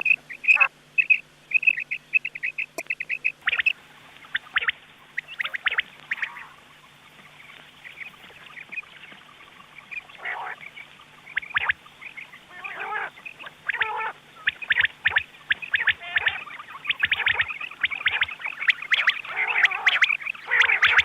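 Recorded quail (batair) calls from a lure cassette. First comes a quick run of short, high repeated notes, then clusters of calls that grow busier toward the end, over a faint steady hum.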